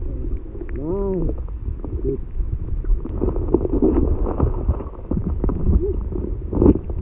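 Muffled low rumble and sloshing of stream water heard through a camera held underwater, the high end cut away by the waterproof housing. A muffled voice from above the water rises and falls about a second in, with more muffled talk a few seconds in.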